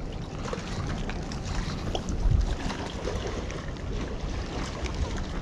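Wind noise on an action camera's microphone over sea water lapping close by, with a brief low bump a little over two seconds in.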